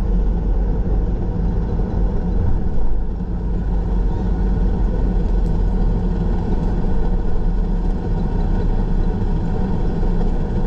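Car being driven, heard from inside the cabin: a steady low drone of engine and road noise.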